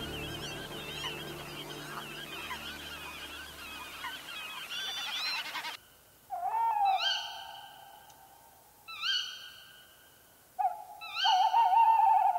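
Birds calling over wetland: first a dense chorus of wavering high calls over a low hum, then, after a sudden cut about six seconds in, loud repeated calls about every two to three seconds, each held about a second at one pitch.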